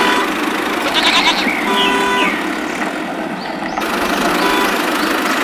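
A toy tractor's small electric motor and gears running steadily as it pulls a trolley, with a short pitched bleat-like call about a second in and another around two seconds in.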